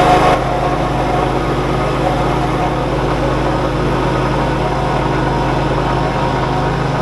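John Deere tractor engine running steadily, a little quieter from about half a second in. Its unhealthy-sounding noise is one the owner suspects is a dry wheel bearing.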